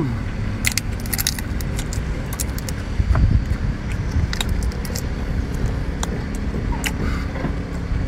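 Cooked shrimp shell being peeled and broken apart by hand: a scattered run of sharp, crisp crackles and clicks, with some chewing, over a steady low rumble.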